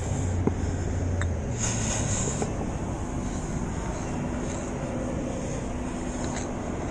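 Steady street traffic noise, with a low engine hum in the first second and a half and a few faint clicks.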